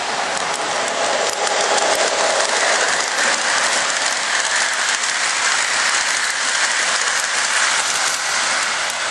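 O gauge model train running past on its track: a steady rushing rattle of wheels and motor that swells about a second in and eases near the end.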